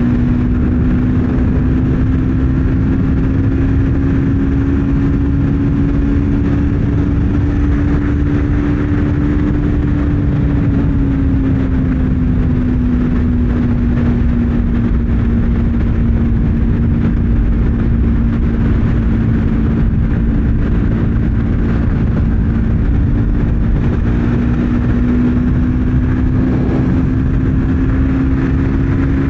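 Triumph Speed 400's single-cylinder engine running hard at highway speed, its note holding steady, dipping about a third of the way in and climbing again near the end, under heavy wind rush on the microphone.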